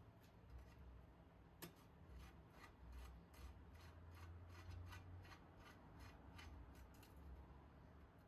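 Faint metallic clicking, about three clicks a second, as a nut is threaded onto the bolt of a trolley jack's caster-wheel mount while a screwdriver holds the bolt.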